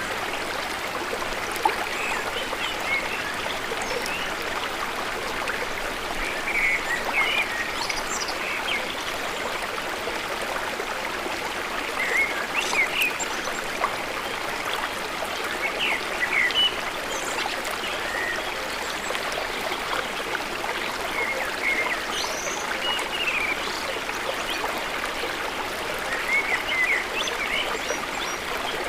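Steady rush of running water from a stream or small waterfall, with scattered short high chirps every few seconds.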